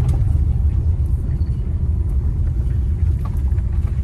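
Steady low rumble inside a turbocharged car's cabin as it drives along a rough, unpaved lane: tyre and engine drone with a few faint clicks of rattling.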